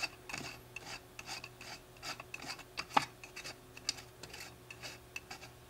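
Small parts of an MBS-10 stereo microscope's eyepiece head scraping and clicking faintly as a bushing is worked by hand onto the hinge axle. The scrapes come irregularly, with one sharper click about three seconds in.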